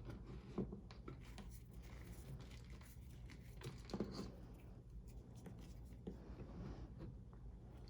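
Reformed gym chalk being crushed: faint, irregular crunching and crumbling, with a sharper crack about half a second in and another at about four seconds. The chalk is crunchy because it was not fully dried.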